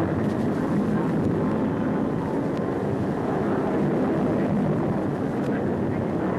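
Jet noise from an English Electric Canberra trainer's two Rolls-Royce Avon turbojets as it flies overhead in a display, a steady, muffled rushing sound.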